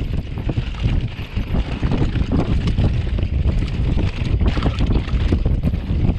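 Wind buffeting the microphone as a downhill mountain bike rolls fast over a dry dirt and rock trail, with tyre rumble and frequent knocks and rattles from the bike over the bumps.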